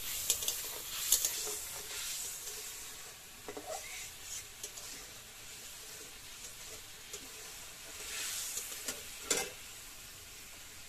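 Food sizzling in a cooking pan while a spatula stirs it, scraping and clicking against the pan now and then.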